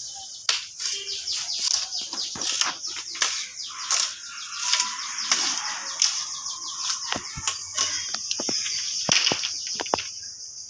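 Bamboo being split and trimmed with a heavy blade against a wooden block: irregular sharp knocks and cracks, with dry bamboo strips clattering. A steady high insect drone of crickets runs underneath.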